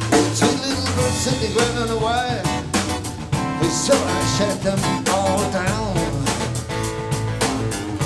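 Live acoustic trio playing: acoustic guitar, acoustic bass guitar and drum kit keeping a steady beat, with a lead melody that bends in pitch over them.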